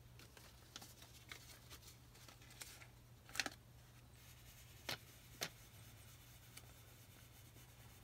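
Faint rustling and rubbing of a paper banknote worked along a gas furnace's flame sensor rod to clean it, with a few soft clicks near the middle, over a low steady hum.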